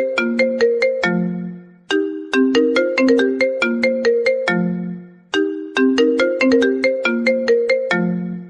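Mobile phone ringtone: a short melody of quick, sharply struck notes that ends on a lower held note, looping about every three and a half seconds.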